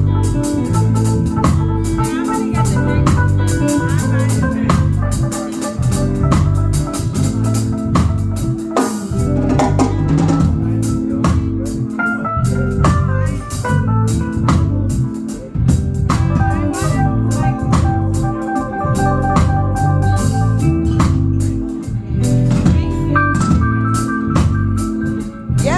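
Live band playing an instrumental groove, with sustained organ chords over bass and a drum kit's steady cymbal and drum hits.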